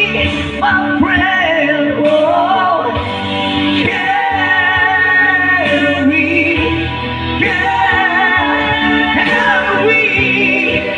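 Live singing into a microphone, with long, high notes that waver, over chords from a Yamaha electronic keyboard.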